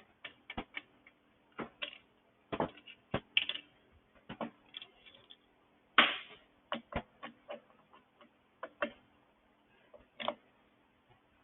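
Irregular metallic clicks and knocks of hand tools and bolts on a GCV small engine as the case bolts are taken out: scattered light ticks with a few sharper knocks, the loudest about six seconds in.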